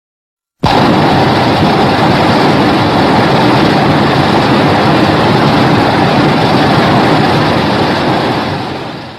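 Godzilla sound effect: a loud, steady rushing noise with no clear pitch that starts suddenly about half a second in, holds for several seconds and fades away near the end.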